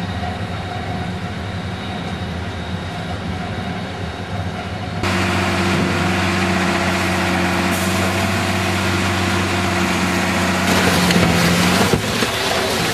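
Tyre shredder and its loading machinery running: a steady mechanical hum with a low drone, turning louder and noisier about five seconds in, with another shift near the end.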